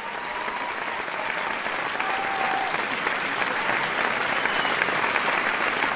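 Applause: a dense patter of many clapping hands that grows gradually louder.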